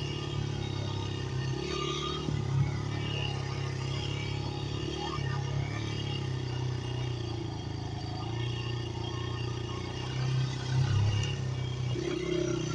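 Dirt bike engine running while riding, its note rising and falling with the throttle, with brief louder swells about two and a half seconds in and again near the end.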